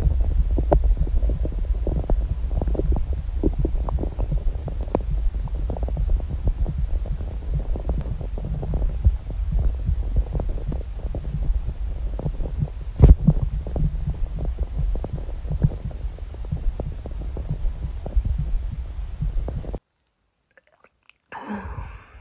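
A person's stomach gurgling, heard close up with the ear against the belly: a continuous low rumble full of small pops, with one louder pop about 13 seconds in, cutting off suddenly near the end. The gurgling comes from an upset stomach full of fizzy soda.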